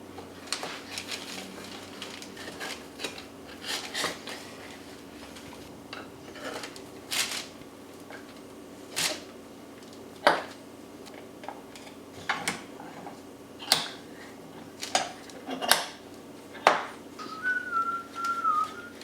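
Irregular light knocks and clatter of small wooden box pieces being handled and fitted together while box joints are glued. Near the end a person starts whistling a wavering tune.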